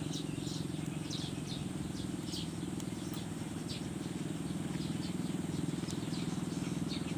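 A steady low drone, like a small motor running, with short high bird chirps scattered over it.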